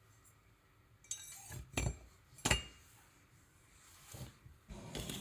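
Metal kitchen knives clinking and knocking as they are handled: a quick run of sharp clinks about a second in, with two louder knocks, then a softer knock and some handling noise near the end.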